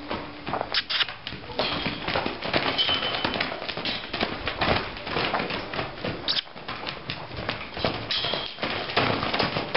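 Hoofbeats of a Quarter Horse mare loping and bucking loose on soft dirt footing: a fast, uneven run of thuds and scuffs.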